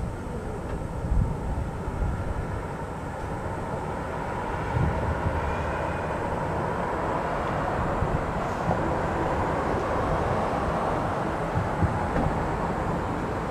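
Outdoor noise at a fireworks display: a steady rumbling hiss that swells a little partway through, with a few dull thumps from distant firework bursts.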